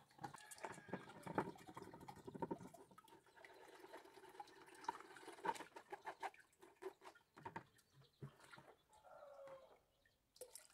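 Faint wet squelching and ticking of hands working masa dough through a plastic strainer over a tub of masa water, with a few faint clucking calls, one about nine seconds in.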